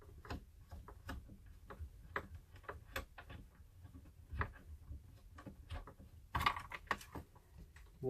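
Light scattered clicks and ticks of a power cable and its plug being handled and unplugged from the back of a fish-finder unit, with a brief louder rustle about six and a half seconds in.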